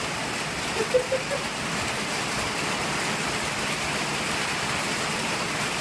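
Steady rain falling, an even hiss throughout, with a few short pitched blips about a second in.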